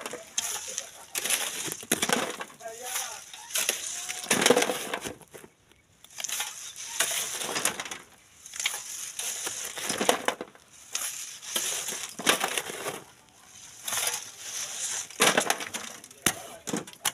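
Shovel scraping into gravelly sand and tipping it onto a wire-mesh sieve over a wheelbarrow, the sand hissing and rattling through the mesh. Repeated gritty scrapes and pours come every second or two.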